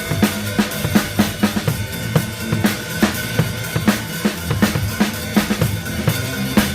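A band playing live, with the drum kit out in front: a steady beat of bass drum and snare strikes, with cymbals, over sustained low notes.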